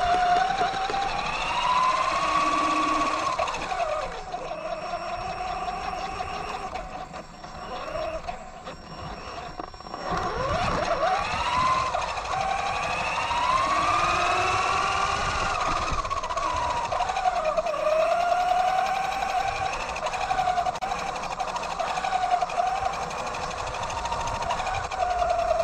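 Electric RC truck motor and drivetrain whining, the pitch gliding up and down as the throttle changes. It drops quieter for a few seconds in the middle, then swoops down and back up.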